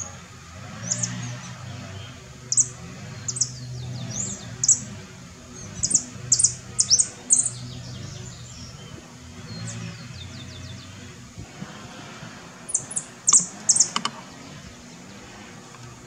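Saffron finch singing: a string of short, sharp high chips, in a long run over the first half and a second brief burst near the end.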